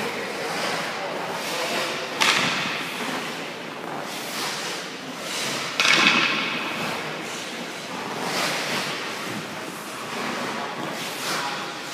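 Hockey goalie skates scraping and carving the ice in a series of pushes and stops, each scrape starting sharply and fading; the two loudest come about two seconds and six seconds in.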